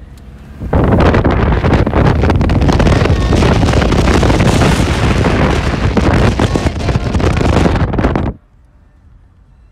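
Wind buffeting a phone's microphone held out of a moving car's window: loud, rushing noise that starts suddenly about a second in and cuts off sharply near the end.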